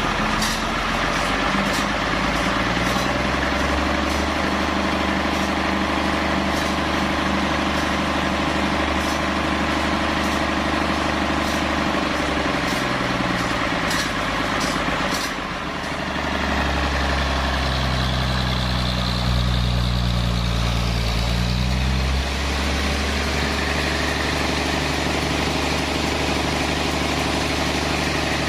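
Large engine of sawmill machinery running steadily, its pitch shifting down and back up a few times as its speed changes, with faint ticks in the first half.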